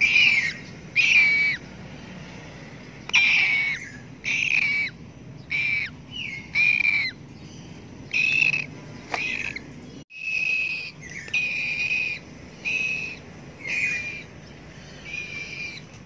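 Two-month-old parrot chick calling over and over: a short, harsh call about once a second, some calls dropping in pitch at the end.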